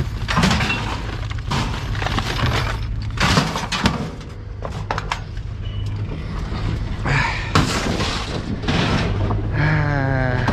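Pieces of scrap metal, doorknobs among them, being thrown onto a scrap pile: a string of irregular clanks and crashes over a steady low hum.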